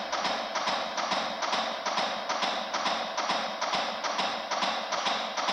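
Steady, rapid chest compressions on a CPR training manikin: an even train of clicks and knocks at a regular pace, heard over a continuous background beat track.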